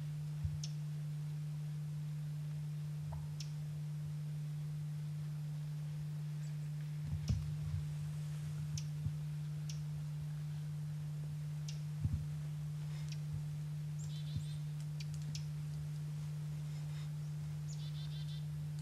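A steady low hum, with short high chirps scattered through, some in quick little clusters near the end, and a few soft low thumps around the middle.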